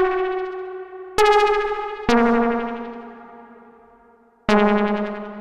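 U-He Repro 5 software synthesizer playing a keys preset: single notes struck one at a time, three in all after one already ringing, each with a sharp attack and a slow fade, the last ones lower in pitch.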